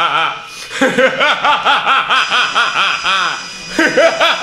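A person laughing in a quick run of rising-and-falling bursts, several a second, pausing briefly near the start and again about three and a half seconds in.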